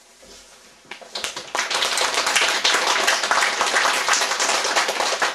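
Audience applauding: clapping starts about a second in and quickly fills out into a dense run of many hands.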